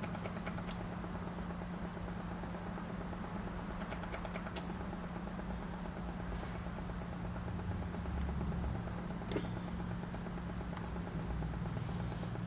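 Steady low electrical hum from the workbench electronics, with a few faint clicks near the start and about four seconds in.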